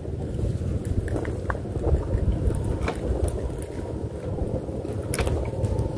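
Wind buffeting the microphone, a steady low rumble, with a few light clicks scattered through.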